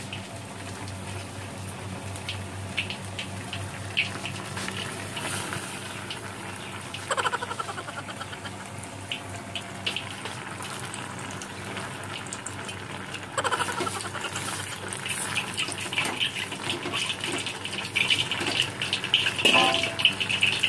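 Water gushing and filling into a stainless-steel cooking pot on a gas stove, a steady hiss with a low hum under it and a few louder stretches.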